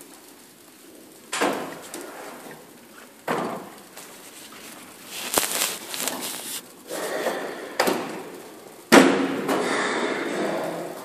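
A run of about five knocks and thumps, each trailed by a rustle. The loudest thump comes near the end, followed by a couple of seconds of rustling.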